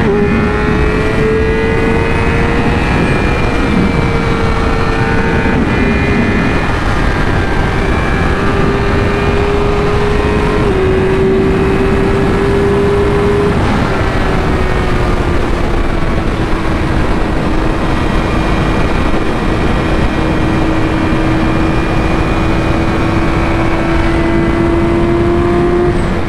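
Yamaha R6 inline-four engine running at a steady highway cruise, its pitch easing lower about halfway through, under loud wind rush on a helmet-mounted microphone.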